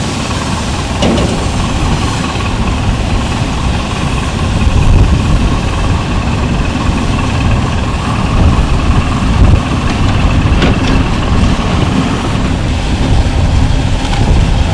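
Boat engine running steadily, with a faint steady whine over the engine noise.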